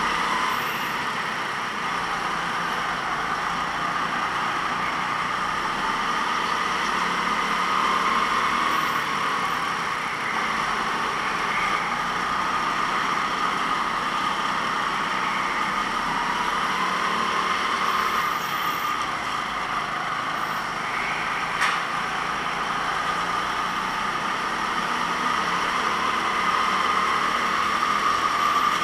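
A racing kart's engine running continuously as it laps, its pitch rising and falling a little with throttle. There is a single sharp click about three-quarters of the way through.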